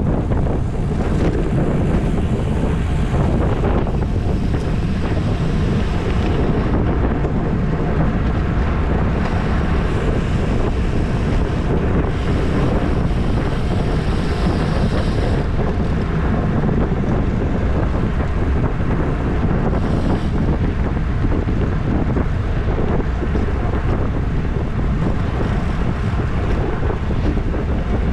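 Wind buffeting the microphone of a camera on a road bike ridden at race speed: a loud, steady rush of noise, strongest in the low end, with hissier stretches now and then.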